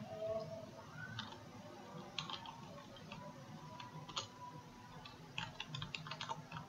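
Faint typing on a computer keyboard: scattered keystrokes, then a quick irregular run of them near the end.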